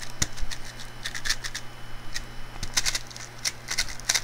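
QiYi X-Man Tornado V3 M magnetic 3x3 speedcube being turned fast one-handed: an irregular quick run of plastic clicks and clacks as the layers snap round, bunching up in the second half.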